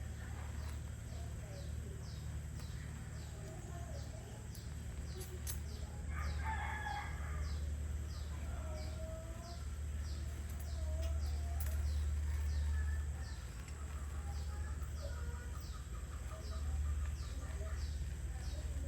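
Birds calling: a high, short chirp repeating about twice a second, and a louder call about six seconds in, over a steady low hum.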